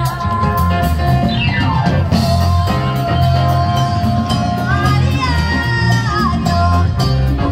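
Live band playing: a steady drum beat and bass line under held melody notes, with a quick downward sweep about a second and a half in.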